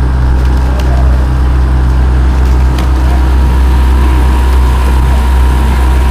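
Motorboat engine running steadily close to the microphone, a loud low hum that does not change, with water noise over it.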